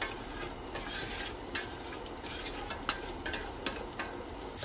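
Diced red onion sizzling in hot oil in a pressure-cooker pot, stirred with a spoon that scrapes and clicks against the pot now and then.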